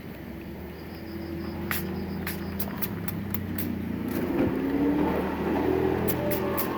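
An engine running, growing louder from about a second in and peaking a few seconds later, as a vehicle passing close by would.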